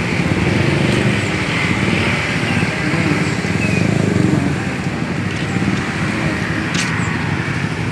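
Street traffic noise: motorcycles and cars passing steadily on the road, with a short click near the end.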